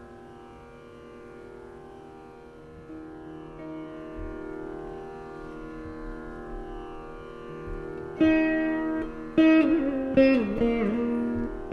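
Saraswati veena playing a Carnatic krithi in raga Khamas: quiet, steadily ringing tones for most of the first eight seconds, then louder plucked phrases from about eight seconds in, the notes sliding and wavering in pitch (gamakas).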